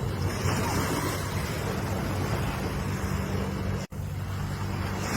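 Ocean surf: waves washing in as a steady hiss over a heavy low rumble, swelling about half a second in and again near the end. A split-second dropout breaks it just before four seconds in.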